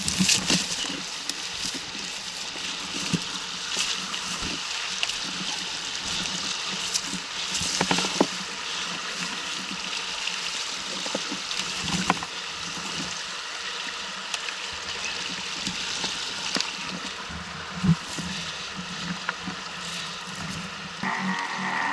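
Shallow river rushing over stones, a steady hiss of flowing water, with a few sharp snaps and rustles from someone pushing through brush on the bank.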